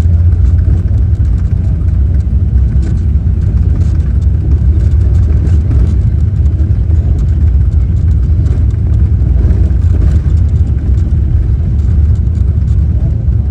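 Airplane taking off: a loud, steady low rumble with fine, irregular rattling on top, rattling that is normal on takeoff.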